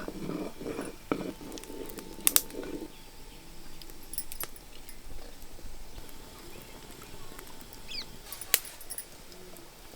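Two sharp metallic clinks of cooking utensils, about two seconds apart and six seconds apart, with faint bird chirps in the background.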